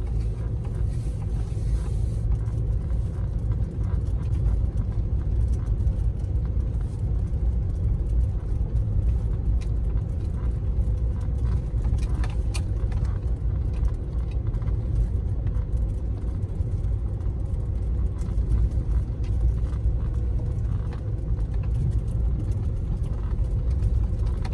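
Steady low rumble of a car driving, heard from inside the cabin, with a few faint scattered ticks.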